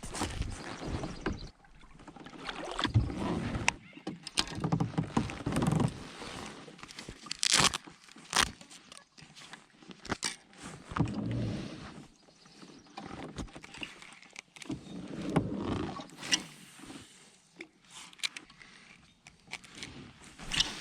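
Kayak on the water: repeated swells of water swishing along the hull, with scattered sharp knocks and clicks of gear against the boat.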